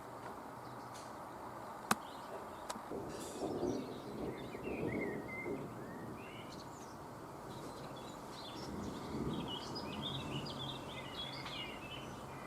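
Birds chirping in short, repeated calls, over a low rumbling background, with a single sharp click about two seconds in.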